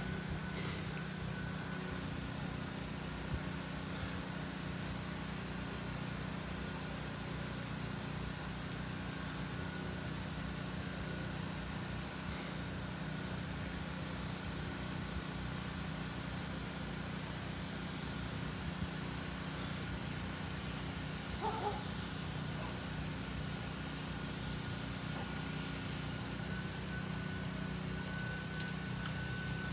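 Steady low mechanical drone of a running motor, with a faint steady high whine above it.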